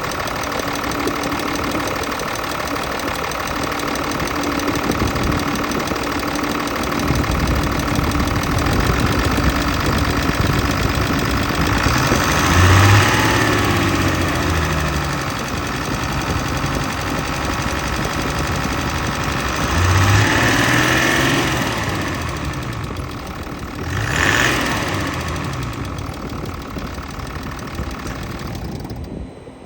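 Mercedes-Benz OM656 inline-six diesel engine running with a knock, the fault it is being recorded for. It is revved up and back down three times, and the sound drops away abruptly near the end.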